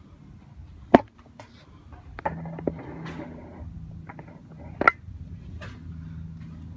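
Metal gym weights clanking a few times, two sharp clanks with a short ring standing out about a second in and again near five seconds, over a low steady hum.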